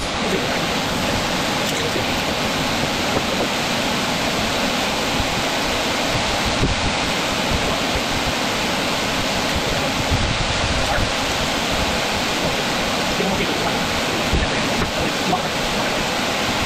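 An electric shop fan running: a steady, loud rush of air that holds level with no rhythm or change.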